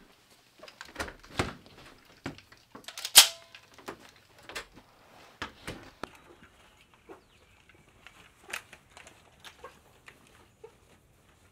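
Clicks, knocks and rattles of gear being handled and moved, the loudest a sharp click about three seconds in; they thin out after about six seconds.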